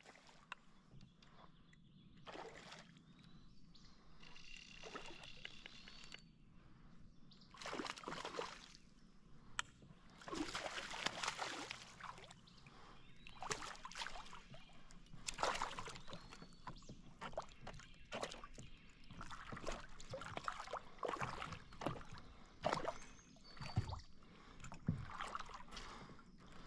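Hooked smallmouth bass thrashing at the surface beside a canoe, the water splashing and sloshing in irregular bursts. The splashing grows louder and more frequent after the first several seconds, as the fish is brought alongside and handled.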